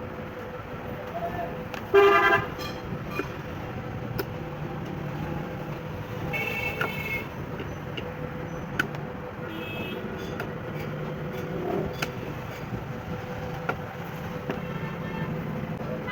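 Vehicle horns honking in short toots, three times: the first, about two seconds in, is the loudest. A few sharp clicks sound over a steady traffic hum.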